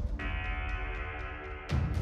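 Cinematic soundtrack music: a held chord over a low drum rumble, then a heavy drum hit near the end.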